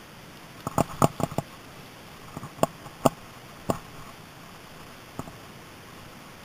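A handful of irregular sharp clicks and knocks, bunched in the first four seconds with one more later, over a steady hiss.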